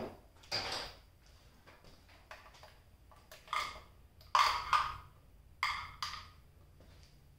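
Handling noise at the motorcycle: about six short knocks and clacks, one about half a second in, then a cluster from about three and a half to six seconds in, the loudest pair in the middle of that cluster.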